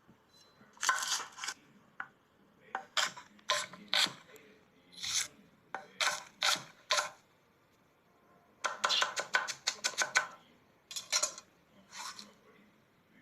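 Kitchen food-prep sounds: knife strokes chopping and scraping in short, irregular bursts, with a fast run of about nine strokes a second roughly nine seconds in.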